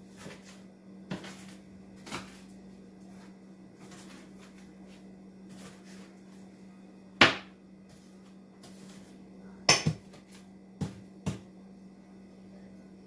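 Kitchen knife dicing an onion on a cutting board: scattered, irregular chops, the two loudest about seven and ten seconds in.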